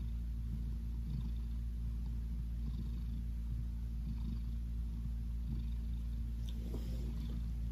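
Tabby cat purring steadily, a low continuous rumble close to the microphone while the cat rests.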